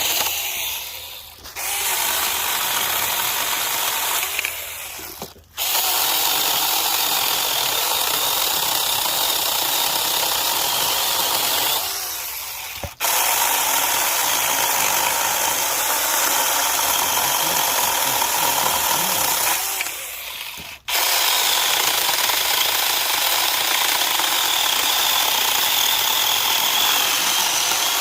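Saker Mini battery-powered handheld chainsaw with a 4-inch bar, running under the trigger to cut wood. It runs in long stretches broken by four brief stops, and the sound eases off a little just before each stop.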